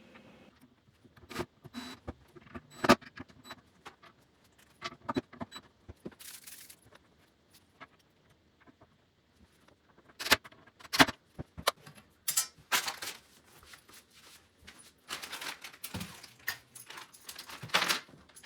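Small metal hardware clinking and rattling, mixed with sharp taps and knocks, in scattered clusters with a quiet stretch in the middle.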